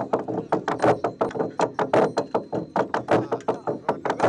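A fast, uneven run of sharp knocking or struck sounds, about four to five a second, each dying away quickly.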